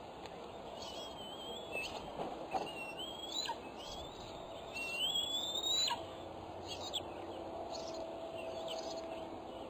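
Bald eaglets calling: a series of high, thin whistles, each rising in pitch and lasting up to about a second, the loudest about five seconds in, over a steady background hiss.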